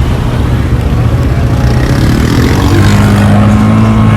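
Off-road vehicle engine running under way, rising in pitch about two and a half seconds in and then holding at higher revs.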